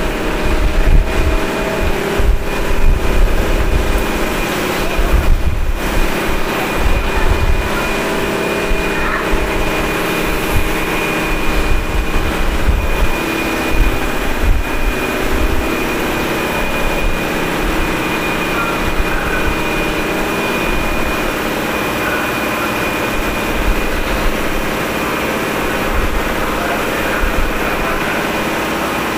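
Air compressor (HB-2000) and motor-generator of a Keio 7000 series electric train car running with the train at a standstill at the end of the line. A steady high whine sits over heavy, uneven low pulsing that is strongest in the first several seconds.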